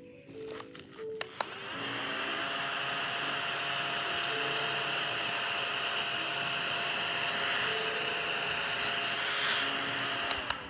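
Battery-powered desktop vacuum cleaner with a high-speed fan (CHO-JU Suikom), clicked on and running steadily with an even whirring hum for about eight seconds, then switched off near the end. A few clicks from handling and the switch come before it starts.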